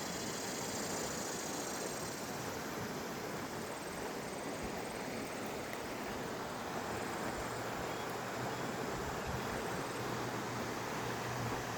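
Steady outdoor rushing noise, even and unbroken. A faint low drone comes in a little over halfway through.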